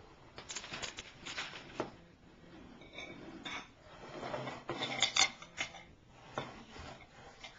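A spoon knocking and scraping against a bowl on a table: scattered clinks, with a loudest cluster of them about five seconds in.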